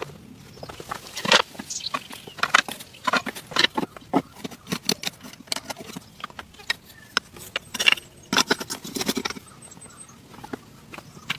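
A series of irregular sharp clicks and knocks, coming in quick clusters with short gaps.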